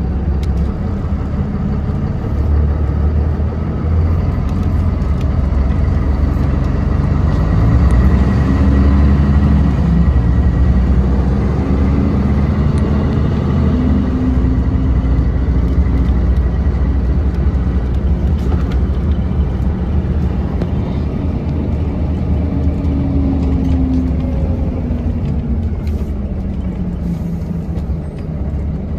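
Mercedes-Benz O405NH city bus engine running under way, heard from inside the cabin: a deep rumble whose pitch rises and drops several times as the bus speeds up and shifts gear.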